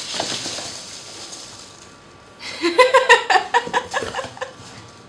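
Rustling of packaging as items are pulled from a box, then a woman laughing for about two seconds.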